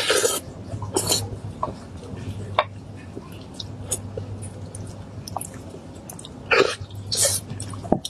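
Close-miked eating sounds: sucking and slurping meat off a bone, with wet mouth clicks and chewing. Short louder slurps come at the start, about a second in, and twice more near the end, over a steady low hum.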